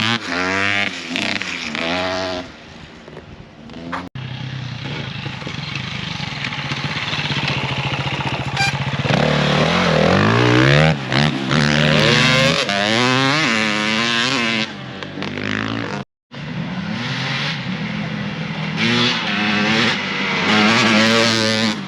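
Off-road motorcycle engines revving, the engine note rising and falling again and again with throttle and gear changes. The sound breaks off briefly twice, once early and once about three-quarters of the way through.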